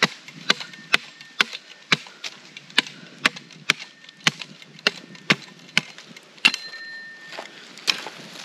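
A hatchet head pounding a wooden stake into the ground: sharp knocks at about two strikes a second.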